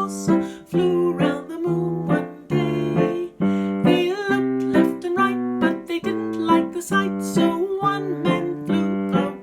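Piano or keyboard playing a tune in short notes and chords, about three a second.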